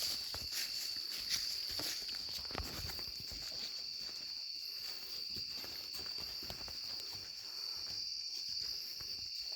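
Footsteps, a scatter of irregular clicks and knocks, over a steady high-pitched insect drone, as of crickets chirring.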